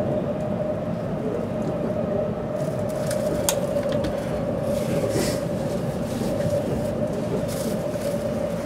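Running noise inside a JR East E257 series limited-express car under way: a steady rumble with a steady hum. A couple of short clicks and hisses come about three and five seconds in.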